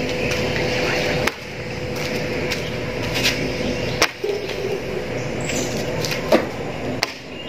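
Thin, oiled porotta dough being swung out and slapped against the work surface, several sharp slaps a second or two apart.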